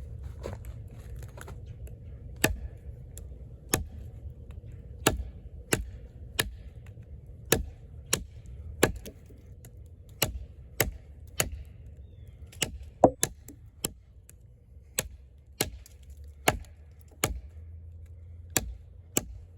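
A large fixed-blade camp knife with a thick 6.7-inch steel blade chopping into a wooden log: a steady series of sharp chops, about one every second or so, some coming closer together.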